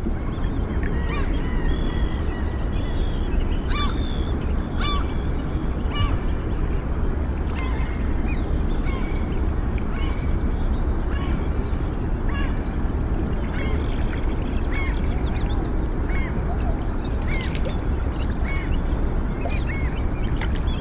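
Birds calling over and over, short hooked calls about once a second, with a few longer held whistles in the first few seconds, over a steady low background noise.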